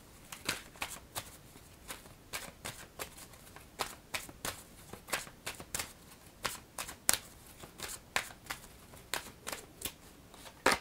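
A deck of Angel Answers oracle cards being shuffled by hand: a steady run of short, crisp card flicks, about two or three a second.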